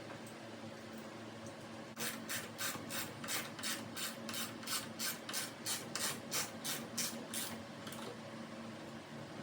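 Ratchet wrench worked back and forth to tighten a mirror mounting bolt: a rapid run of short rasping ratchet strokes, about three a second, starting about two seconds in and stopping a couple of seconds before the end.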